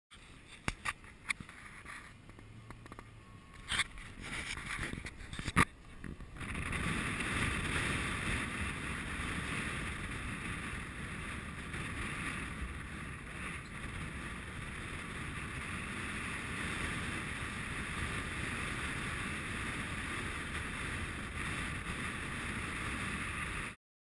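A few sharp knocks and clicks, then a steady rush of wind and road noise from a car driving slowly behind a cyclist, with wind buffeting the camera mounted at the car's window. The noise cuts off abruptly near the end.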